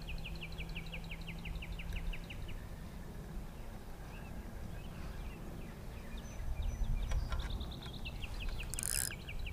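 A songbird's trill of short, rapid chirps, each falling slightly in pitch, about eight a second. It is heard in the first couple of seconds and again from about seven seconds in, over a low outdoor rumble.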